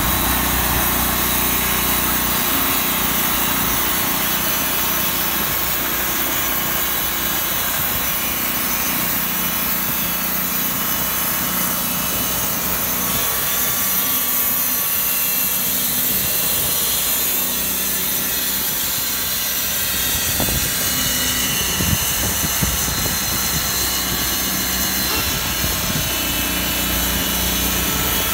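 Wood-Mizer LT40 portable band sawmill running: its engine runs steadily while the band blade saws lengthwise through a log, a constant mechanical drone with a hissing cutting noise over it.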